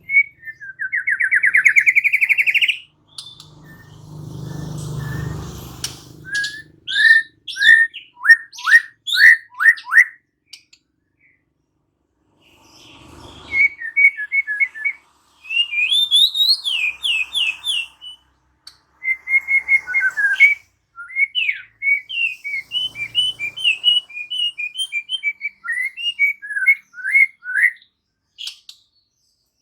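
White-rumped shama (murai batu) singing in varied phrases: a fast trill, a string of sharp whistled notes, then after a pause of about two seconds, quick runs of repeated chirping notes. A brief low rumble sits under the song about four seconds in.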